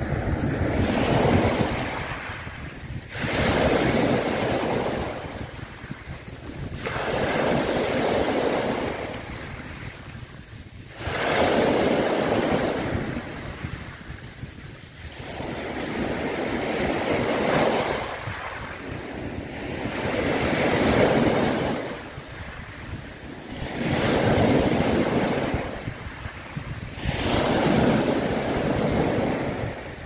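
Sea waves washing in and drawing back. The surf swells and fades about every four seconds.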